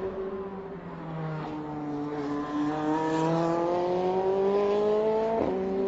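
Formula Renault 2.0 race car's four-cylinder engine at full throttle, its pitch climbing steadily through a gear, with a quick upshift (a sudden drop in pitch) about five seconds in.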